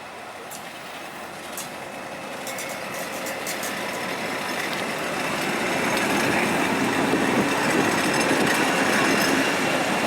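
44 class diesel-electric locomotive approaching under power, its engine growing steadily louder, with a patter of metallic clicks and rattles a couple of seconds in.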